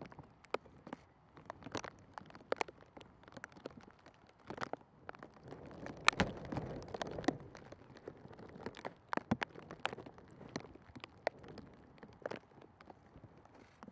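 Light rain: irregular sharp raindrop taps, a few a second, over a faint hiss.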